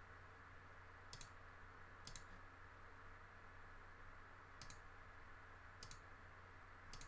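Computer mouse button clicking about five times, each a short sharp click with a second or more between them, over a faint low hum.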